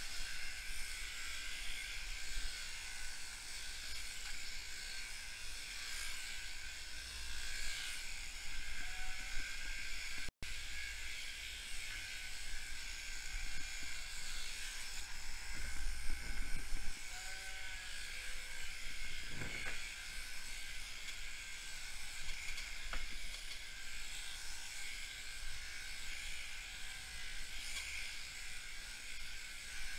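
Electric sheep-shearing handpiece, fitted with a 588 comb and 2–3 mm cutter, running steadily with a high, even whine as it cuts through a ewe's fleece.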